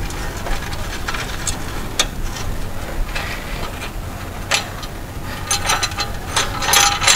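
Metal motorcycle exhaust parts and hardware being handled: scattered knocks and rubbing, then a quick run of ringing metallic clinks near the end.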